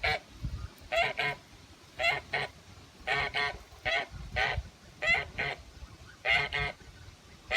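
Kholmogory geese honking repeatedly, the calls mostly coming in quick pairs about once a second.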